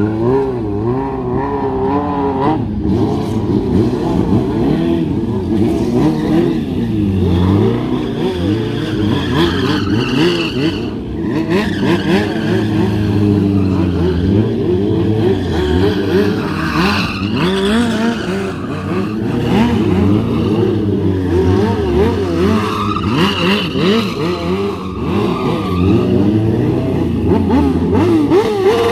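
Motorcycle engines revved hard, their pitch rising and falling constantly, as long-swingarm bikes drift, with tyre squeal coming and going.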